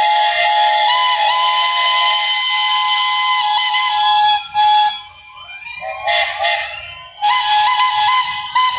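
Steam locomotive whistles blowing: a long blast of about five seconds that wavers between two close pitches, then whistles sliding up in pitch and a run of short blasts near the end.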